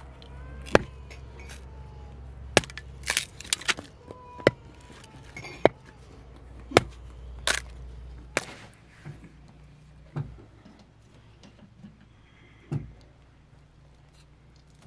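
Hatchet splitting small logs into kindling on a wooden chopping block: about ten sharp, woody cracks and knocks at irregular intervals of roughly a second, then a few softer knocks after about eight seconds.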